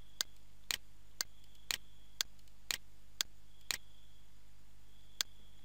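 Computer mouse clicking, sharp single clicks about two a second with a pause of about a second and a half near the end.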